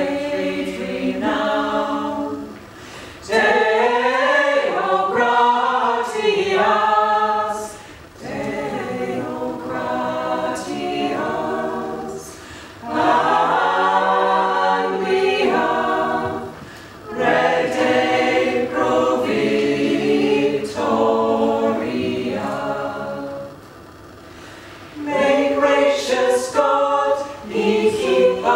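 A small mixed choir of men's and women's voices singing a cappella in phrases, with brief breaks between them.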